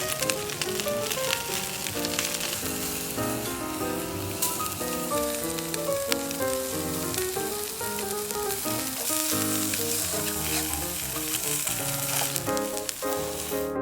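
Food sizzling steadily in a frying pan over a fire, under background music.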